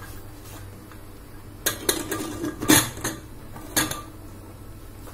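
Stainless-steel pressure cooker lid being fitted and closed onto the pot: a handful of sharp metal clanks and knocks with a short ring, clustered from about a second and a half in to nearly four seconds in.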